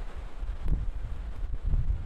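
Strong offshore wind buffeting the microphone: an uneven low rumble that swells and drops with the gusts, over a faint hiss.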